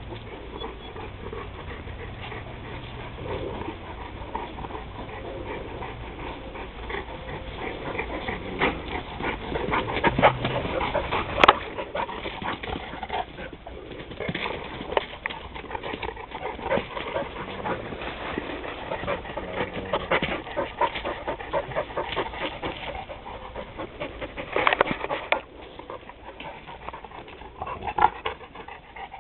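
Two dogs, a mastiff-type and a husky-type, play-fighting, with panting and short, irregular vocal sounds. Louder outbursts come a little over ten seconds in and again near the end.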